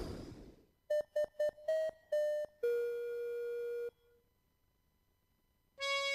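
A short electronic chime jingle: five quick notes, then one lower note held for over a second. Music begins near the end.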